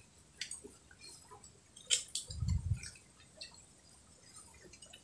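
Faint scattered clicks and taps of mussel and oyster shells being picked over and handled during a meal eaten by hand, with one sharper click just before two seconds in, followed by a short, dull low thump.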